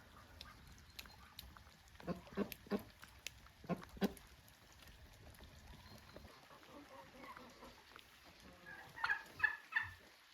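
Farmyard poultry calling: about five short calls from two to four seconds in, then a quicker run of higher calls near the end.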